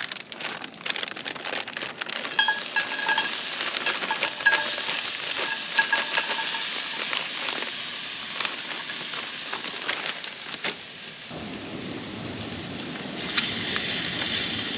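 Sausage, onions and green pepper frying in a cast iron skillet: a steady sizzle with scattered sharp crackles and clicks.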